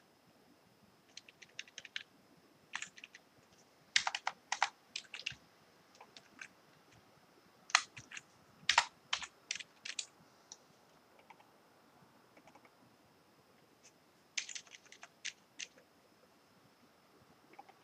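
Computer keyboard typing in short bursts of quick keystrokes separated by pauses of a few seconds.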